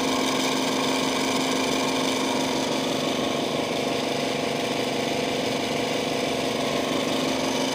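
Electric gear motor running with a steady, even hum.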